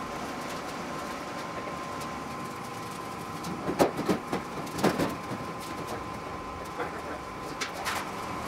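Steady hum with a thin high tone running through it, broken by a few sharp knocks, the loudest two about four and five seconds in.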